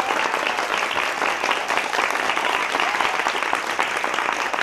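Audience of children and adults applauding: dense, steady clapping.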